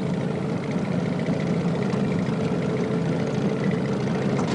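Boat engine running steadily: an even drone that holds the same pitch throughout.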